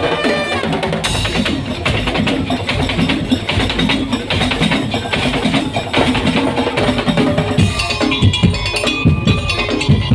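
Madurese tong-tong ensemble playing: wooden slit drums and drums beating a dense, steady rhythm, with pitched melody over it.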